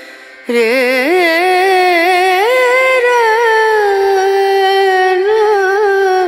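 Music: a song with one voice singing an ornamented melody with wavering, sliding notes. It comes in about half a second in and settles into a long held note.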